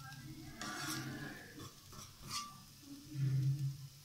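Spatula stirring and scraping diced potato, carrot and beetroot in a nonstick pan, with a few short scrapes. A low hum, the loudest sound, comes about three seconds in.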